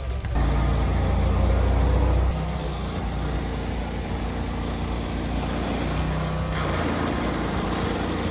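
Walk-behind stump grinder's petrol engine running steadily under load as its cutter wheel grinds down a stump, the note shifting a couple of times.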